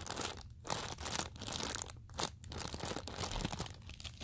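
Homemade paper squishy, paper wrapped in clear tape, crinkling and crackling in uneven bursts as it is squeezed and crumpled in the hands.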